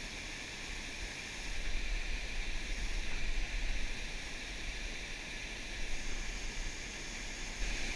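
Steady rush of water pouring over a low dam spillway into the pool below, with a low, uneven rumble of wind on the microphone that picks up about a second and a half in.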